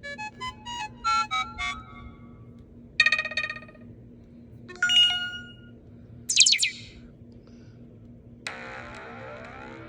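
Android 4.0.4 notification sounds played one after another: a quick run of short electronic chime notes, two single chimes, a fast rising swept tone, then a longer sustained tone that starts near the end.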